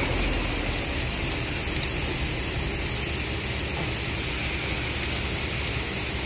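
Palm kernels pouring from a loading chute onto the heap in a truck bed: a steady, even hiss of many small kernels landing and sliding.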